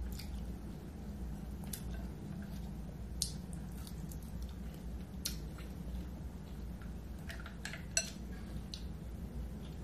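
Close-up eating sounds: a shrimp peeled by hand and eaten, with scattered sharp clicks and wet smacks, and shells knocking against a glass bowl of seafood boil in sauce.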